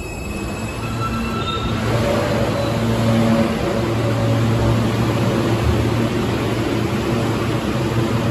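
New York City subway R train standing at the platform, its car giving off a steady hum with several low droning tones that grows louder about a second or two in.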